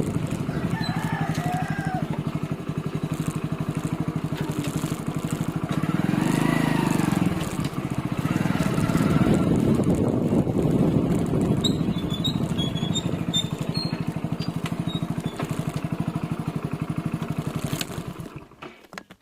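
Small single-cylinder four-stroke motorcycle engine, a Hero Splendor, running steadily with a fast even putter while riding, fading out near the end.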